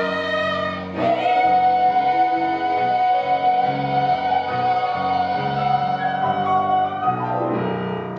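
Musical-theatre singing: a singer holds one long high note on the word "me" over instrumental accompaniment, ending the song. The held note and the accompaniment die away near the end.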